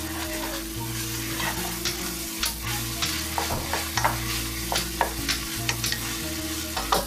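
Beef mince with onions and tomatoes sizzling in a frying pan over a high flame, stirred with a wooden spatula. The spatula makes frequent short scrapes and taps against the pan over the steady sizzle.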